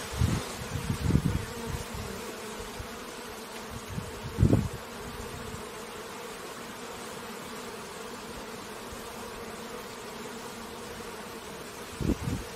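Honeybees buzzing at a hive, a steady many-voiced hum, with a few low bumps in the first second or so, about four seconds in, and near the end.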